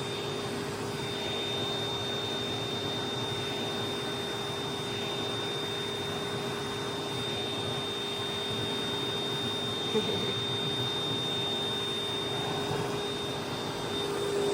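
Vacuum cleaner running steadily: a constant rushing noise with a steady hum and a high whine. A brief knock about ten seconds in.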